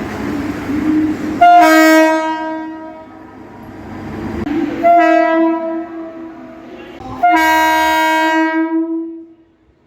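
Mumbai local electric multiple-unit train sounding its two-tone horn in three loud blasts, each about one and a half to two seconds long. Before the first blast the train's running rumble grows louder.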